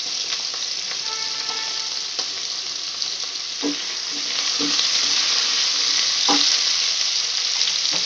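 Cut potato and radish sizzling in hot mustard oil in a wok, frying with a steady hiss. A spatula stirs them and knocks against the pan a few times, and the sizzle swells a little about halfway through.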